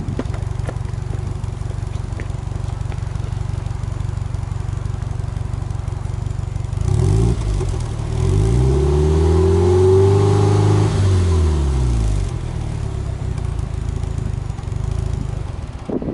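Subaru Impreza WRX STi (GDB E-type) turbocharged 2.0-litre flat-four engine heard at the exhaust tailpipe, idling steadily, then revved once in neutral about halfway through: the pitch climbs over a couple of seconds, holds briefly and falls back to idle.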